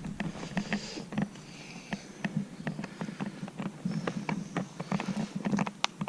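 Footsteps on rough ground: a string of irregular crunches and clicks.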